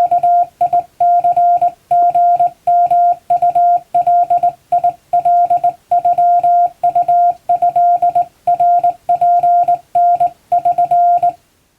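Morse code sent by hand on a straight telegraph key: a steady mid-pitched beep keyed on and off in short dots and longer dashes of Japanese Wabun code. The keying stops shortly before the end.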